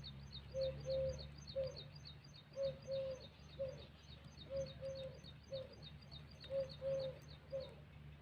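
A dove cooing a three-note phrase, repeated about every two seconds. Over it runs a fast, even series of high chirps, about four a second, which stops near the end.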